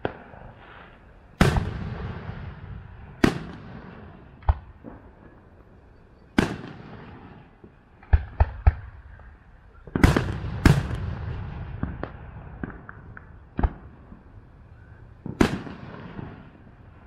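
Aerial firework shells bursting: about a dozen sharp bangs at irregular intervals, each echo dying away over a second or so. Three bangs come in quick succession midway, followed by some smaller crackles.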